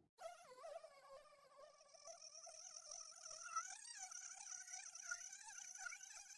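Faint whale call from a whale sound-effect recording: one long, high, wavering tone that starts abruptly just after a short gap and holds with a slowly wobbling pitch.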